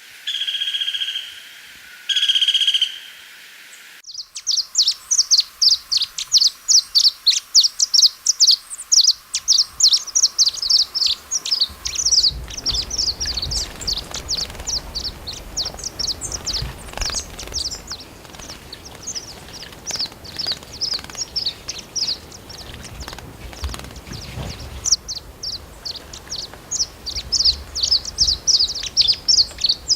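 Wild birds calling. Two clear whistled notes in the first few seconds, then long runs of rapid high-pitched chirps, several a second, over faint outdoor background noise.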